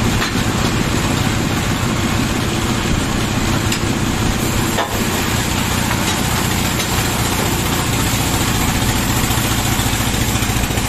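Band sawmill's engine running steadily with a fast, even pulse, the mill idling between cuts.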